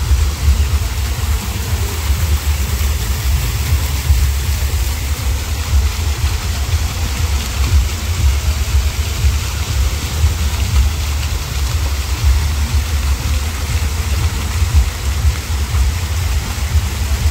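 Fountain jets splashing steadily into a stone basin: an even rushing of water under a heavy, fluttering low rumble.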